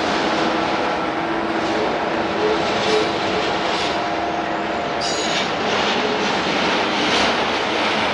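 Train rolling past: a steady rumble of steel wheels on rail, with irregular clicks as the wheels cross the rail joints and a faint wheel squeal.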